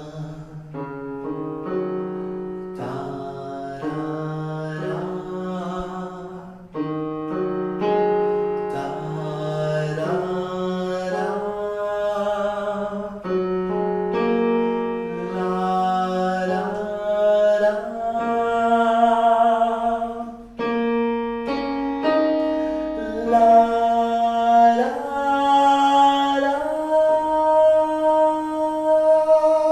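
A man sings a soft vocal exercise over electronic keyboard chords, in held notes that step higher every second or two. He deliberately uses little breath effort and opens his mouth a little wider on each note, so the voice grows brighter toward the end.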